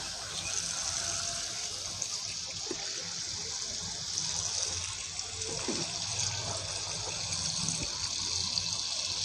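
Tap water running steadily into a steel bowl of chopped cauliflower, potato and carrot, splashing over the vegetables as they are washed.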